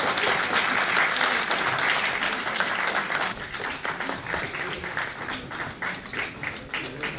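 Audience applauding, dense at first, then thinning into scattered claps and fading over the last few seconds.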